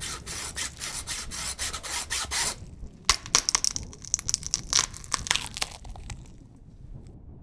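Rapid back-and-forth sawing strokes, a cartoon sound effect of a saw cutting off an elephant's tusk. It comes in two spells with a short pause a little before the middle, and the strokes thin out and fade away about two-thirds of the way through.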